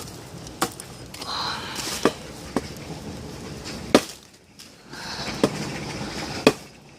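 A hatchet chopping into a log: about seven sharp, unevenly spaced strikes of the blade into the wood, the loudest about four seconds in.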